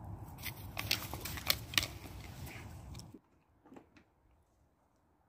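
Great Pyrenees chewing a small black plastic plant pot: a run of sharp plastic crunches and cracks for about three seconds, then it cuts off suddenly, leaving near quiet with a couple of faint clicks.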